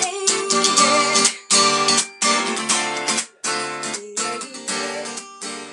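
Music: an acoustic guitar strumming chords, with no singing, getting quieter toward the end as it fades out.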